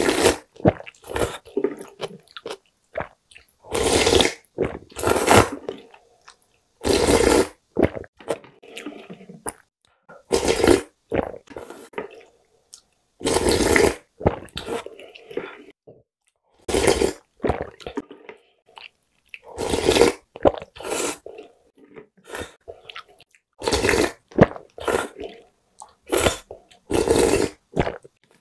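Close-miked slurping of ramyeon broth and noodles from a wooden spoon: about a dozen loud slurps, one every two to three seconds, with quieter chewing and mouth sounds between.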